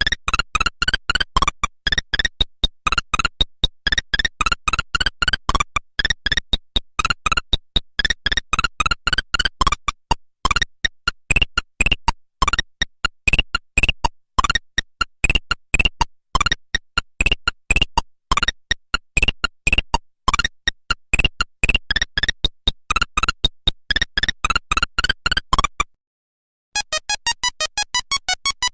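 Nokia 1100 monophonic ringtones: a fast melody of short beeping notes, many sliding upward, that stops about 26 seconds in. After a brief silence a different ringtone starts.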